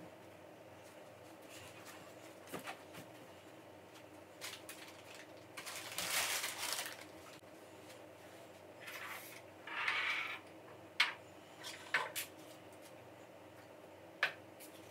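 Someone tidying a room: fabric rustling in two longer stretches, and a few sharp clicks and knocks as small objects such as cups are picked up and set down on a side table.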